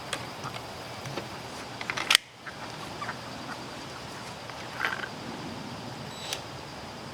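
Chickens clucking, with a short call about five seconds in, among scattered light knocks and a sharp click about two seconds in.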